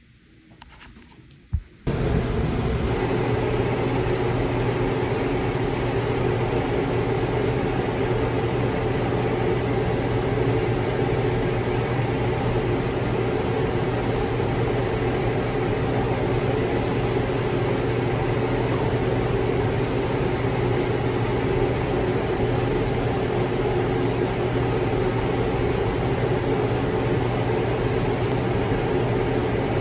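A sharp click, then a machine starts about two seconds in and runs steadily with a low hum and an even whooshing noise.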